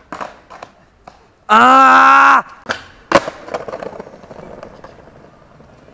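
Skateboard clacks against a park bench and the paving in the first second, then a very loud held shout for about a second. A sharp board impact comes about three seconds in, followed by the wheels rolling over paving tiles.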